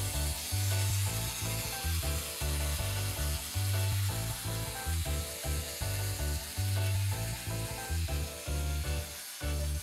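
Background music with a pulsing bass line that changes note about every half second, under a steady high hiss.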